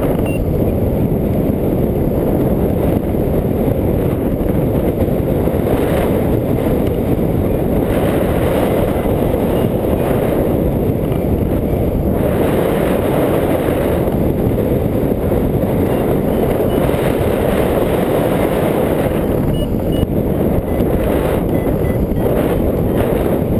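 Wind rushing steadily over the microphone of a hang glider in flight, a loud, even roar. A few faint short high beeps come through near the end.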